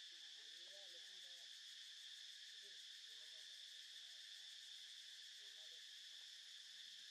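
Faint, steady, high-pitched drone of an insect chorus, unchanging throughout, with a few faint wavering lower sounds in between.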